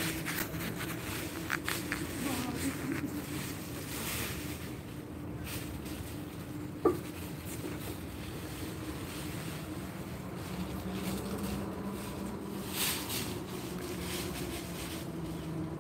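Outdoor background noise: a steady low hum with rustling and noise swelling and fading over it, and a single sharp click about seven seconds in.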